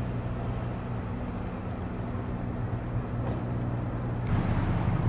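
A steady low mechanical drone made of several held tones, over even outdoor background noise; it grows louder and fuller about four seconds in.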